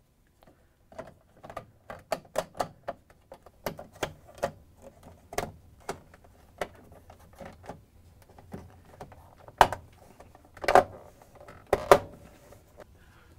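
Plastic refrigerator control panel clicking and knocking as it is hooked in at the bottom, pushed up and snapped into place: a string of sharp clicks, with three louder snaps near the end.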